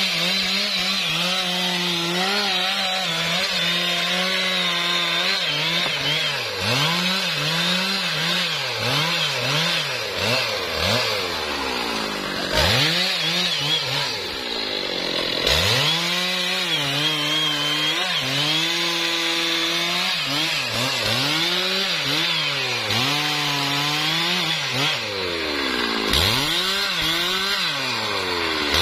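Stihl MS 660 two-stroke chainsaw running near full throttle as it cuts through a felled trembesi (rain tree) trunk. The engine note keeps dipping and recovering as the chain bogs in the wood, and twice around the middle it drops off sharply before revving back up.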